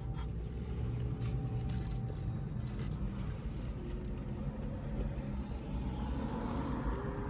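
Steady low vehicle rumble heard from inside a car, with a hiss that swells a little in the last couple of seconds.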